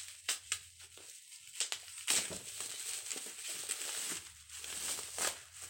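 Protective packaging around a boxed action camera being unwrapped by hand: irregular crinkling and crackling with sharper snaps about two seconds in and again near the end.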